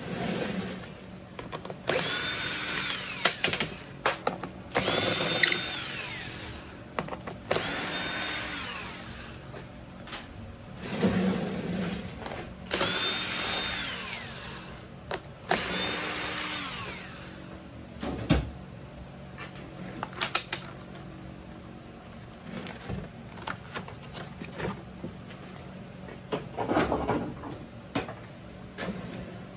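Cordless drill-driver backing bolts out of a fiberglass mother mold, in about five short runs that each spin up, hold a steady whine and wind down. After that, scattered knocks and clatter come from the rigid shell being handled and pulled off the latex mold.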